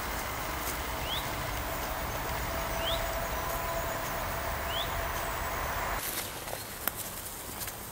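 Forest ambience under a steady hiss, with a bird giving a short rising call about every two seconds. A little before the end the hiss drops away, leaving quieter woodland with a single click.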